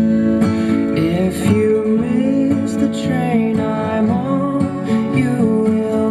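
Music with strummed acoustic guitar starts abruptly and plays on steadily.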